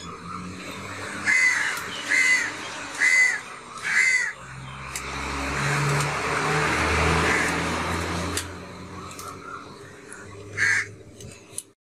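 Crows cawing: four harsh caws about a second apart, then one more near the end. In between, a low rushing hum swells and fades away.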